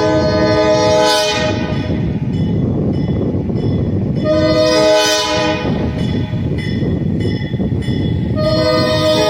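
Alco RS-11 diesel locomotive's air horn sounding a chord of several notes in blasts: one ends about a second in, a short one comes near the middle, and another begins near the end. A steady rumble fills the gaps between blasts.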